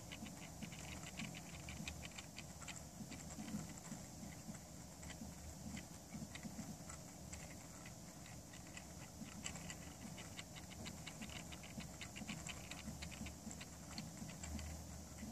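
Small motorized display turntable turning, its gears giving a faint, rapid, uneven ticking over a low hum.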